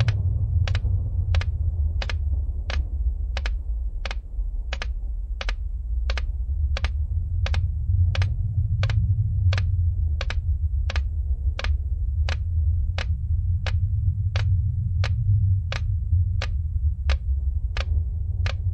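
A steady low rumble with sharp clicks over it at an even pace, about three clicks every two seconds, like a slow ticking.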